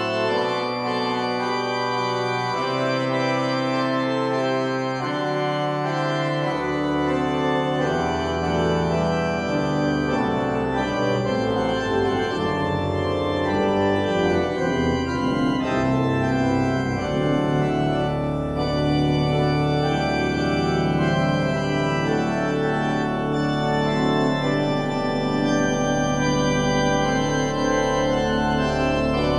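Pipe organ playing sustained, many-voiced chords, with deep pedal bass notes joining about a quarter of the way in.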